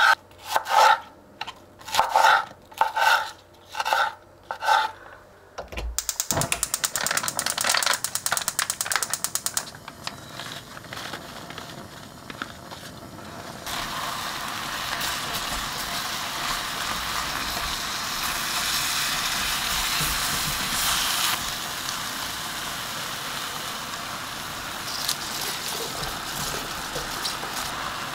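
Knife chopping a green onion on a wooden cutting board, about one stroke a second, for the first few seconds. Then cooking noise settles into a steady sizzle and simmer of the red spicy chicken (dak-galbi) sauce in the pot as it is stirred with chopsticks.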